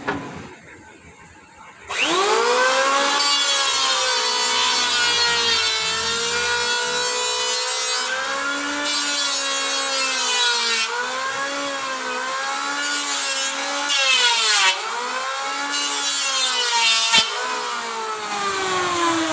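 Handheld electric power tool working wood: the motor spins up with a quickly rising whine about two seconds in, then runs steadily, its pitch dipping several times as the tool is loaded, and winds down near the end.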